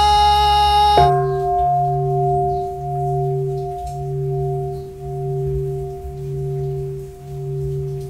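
The band's last held chord stops about a second in, as a large bowl-shaped Buddhist temple bell is struck once. The bell rings on with a slow, regular pulsing beat, slowly fading.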